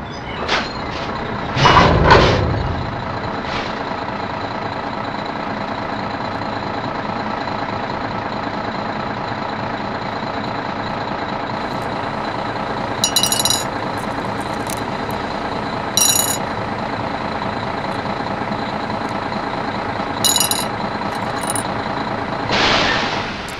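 A truck engine running steadily. There is a loud knock about two seconds in and a few short, light rattles later on.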